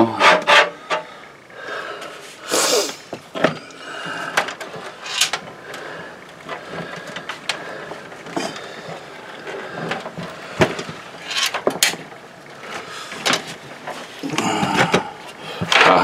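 Scattered knocks, clicks and rattles of a PC case being gripped and tipped to shake out a screw dropped behind the installed motherboard.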